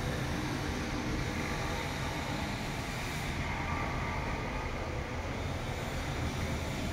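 Steady low rumbling background noise of a city, with no single source standing out.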